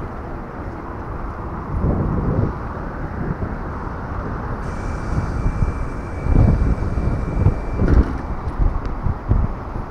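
Street ambience at a bus stop: steady road traffic noise with irregular low rumbles. A faint, steady high tone is heard from about five to eight seconds in.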